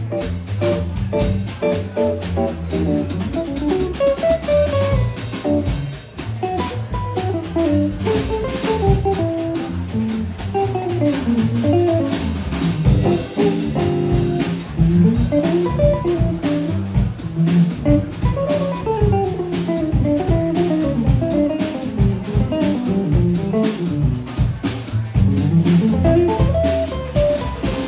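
Electric jazz guitar playing fast single-note lines that climb and descend, over drums and bass.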